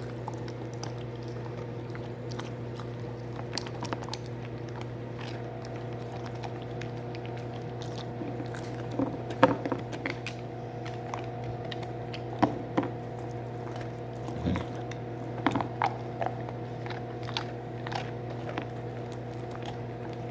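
A dog crunching and chewing pieces of a gingerbread cookie made for dogs, in scattered crunches that are loudest about nine to ten seconds in, over a steady low hum.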